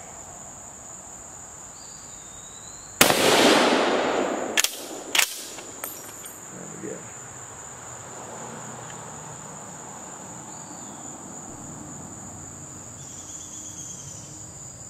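A single shot from a Swiss K31 rifle in 7.5x55mm about three seconds in, echoing for over a second, then two sharp clicks. A steady high drone of insects runs throughout.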